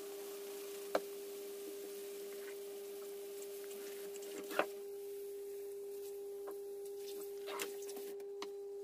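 Kitchen tap running into a stainless steel sink while hands are rubbed and rinsed under the stream, over a steady hum. Two sharp knocks stand out, about one second and four and a half seconds in, with a few smaller clicks near the end.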